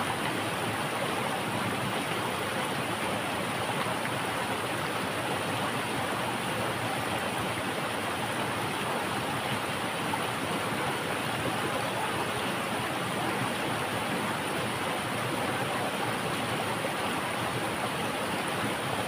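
Steady rushing of a rocky stream pouring over a small cascade and rapids.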